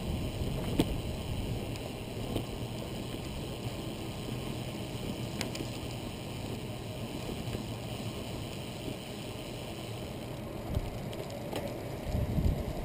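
Steady wind noise on the microphone and tyre rumble from a recumbent trike rolling along asphalt, with a few faint clicks. A low gust of wind buffets the microphone near the end.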